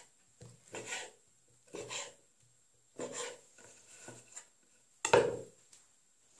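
Kitchen knife cutting through a rolled filo-pastry (yufka) cheese log and knocking on a bamboo wooden cutting board. Short, irregular cuts come one after another, with a louder knock about five seconds in.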